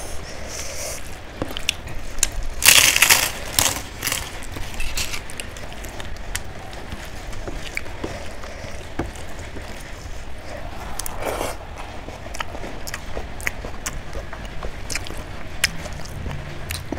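A person eating close to the microphone: biting and chewing with many small clicks, and a louder crunch about three seconds in.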